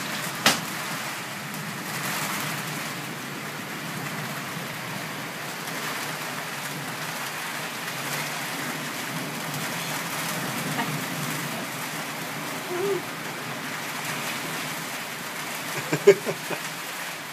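Steady rain falling during a thunderstorm. There is a sharp click about half a second in and a brief cluster of short knocks near the end.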